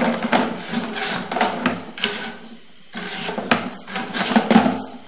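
Sewer inspection camera being pushed down the pipe: scraping and rubbing with frequent sharp knocks. It pauses briefly about halfway through, then starts again.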